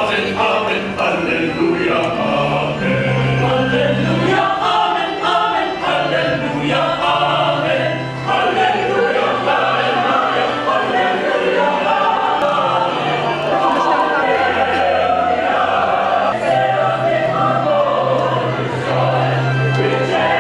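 A church choir singing, with long held low accompaniment notes underneath.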